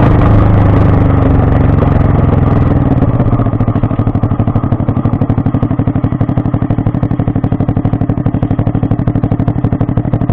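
Small 49cc Honda four-stroke single-cylinder engine exhausting through a short aftermarket pipe with its silencer baffle fitted. It runs at a steady faster pace, then drops to idle about three seconds in, settling into an even putting beat of about ten pulses a second.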